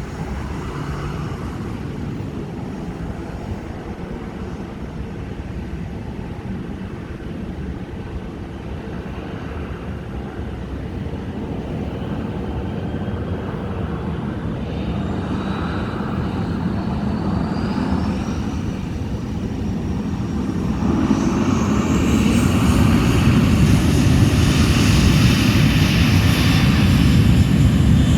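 Boeing 737 NG's CFM56-7B turbofan engines spooling up: a steady low rumble with a thin whine that climbs in pitch, and the engine noise grows louder about three quarters of the way through.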